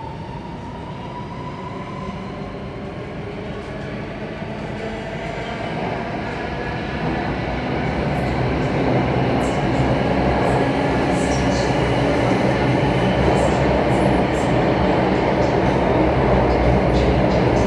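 Alstom Metropolis C830C metro train accelerating, heard from inside the carriage: the traction motor whine rises slowly in pitch while the running rumble grows steadily louder.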